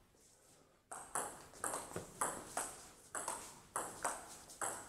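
Table tennis rally: the ball clicking sharply off the bats and bouncing on the table, a quick regular run of about two clicks a second that starts about a second in.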